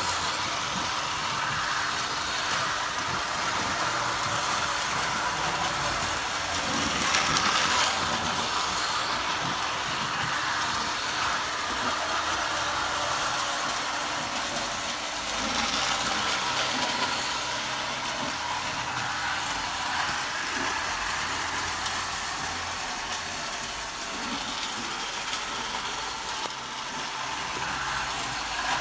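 Toy train running around a plastic track: its small motor whirring and its wheels rattling on the rails in a steady run, swelling louder a couple of times as it passes close.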